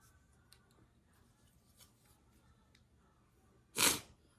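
Faint clicks and rustles of hands working Play-Doh in a plastic mould, then one short, sharp burst of noise near the end, the loudest sound.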